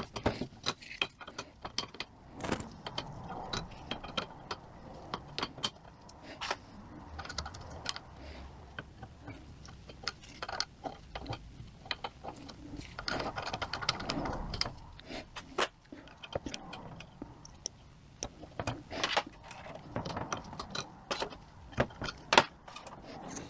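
Small metal transmission valve-body parts clicking and clinking as they are handled by hand: irregular sharp ticks with quieter handling noise between them.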